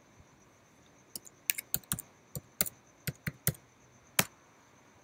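Keys on a computer keyboard typed in a quick run while a password is entered: about a dozen sharp keystrokes over three seconds. The last keystroke, just past four seconds, is the loudest.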